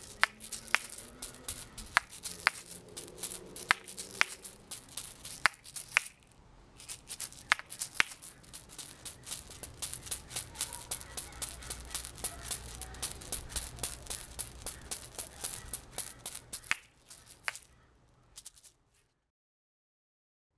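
Asalato (patica), two seed-filled shells on a cord, swung and flipped over the fingers: the seeds rattle and the shells clack together in quick rhythmic runs of clicks, with a short pause about six seconds in and a long fast run after it. The playing stops shortly before the end.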